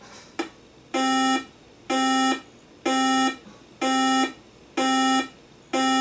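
A weather radio receiver's alert alarm: a buzzy electronic beep repeating six times, about once a second, signalling that a severe thunderstorm warning has just been received.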